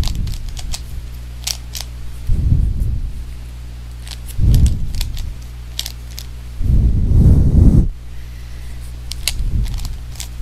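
Rubik's Cube being turned by hand: scattered quick plastic clicks as the layers rotate, with three longer low rumbles of handling, over a steady low hum.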